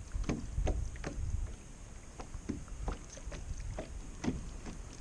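Small irregular knocks and splashes of water against a kayak hull, over the low rumble of wind on the microphone.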